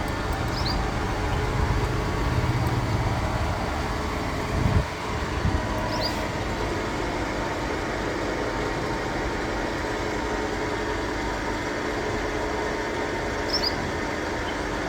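Heavy-duty lathe running with a steady mechanical hum. A short thump comes a little under five seconds in.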